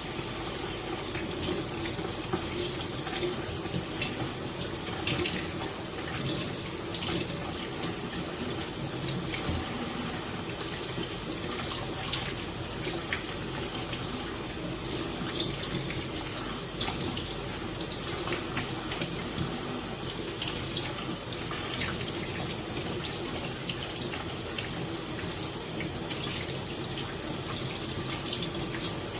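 Kitchen tap running steadily into a sink while shrimp are rinsed and cleaned, with faint small clicks now and then.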